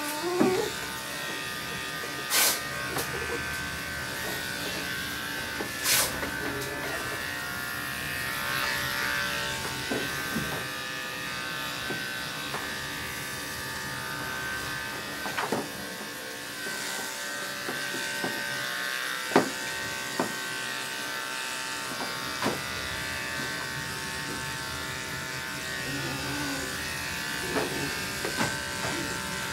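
Andis Pro Grade Endurance detachable-blade dog clipper running with a steady electric hum as it is worked through a dog's coat. A few short sharp knocks occur over the top of it.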